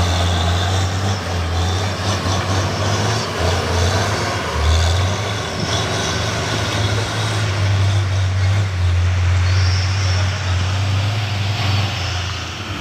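Heavy truck engine running under load with a steady deep drone as a truck works up a hill slick with spilled palm oil.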